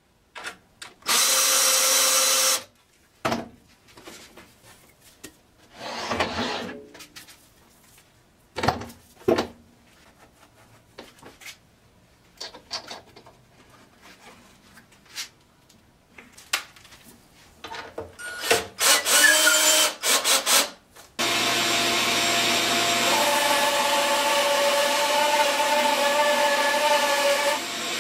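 A cordless drill drives a screw with a short whir about a second in. Scattered knocks and clunks of wood and tools being handled follow, with a few more short bursts near the 19-second mark. At about 21 seconds the Craftsman 14-inch bandsaw is switched on and its motor runs steadily with a hum.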